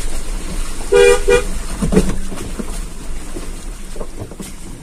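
Two short toots of a car horn in quick succession about a second in, over the low running of the vehicle's engine.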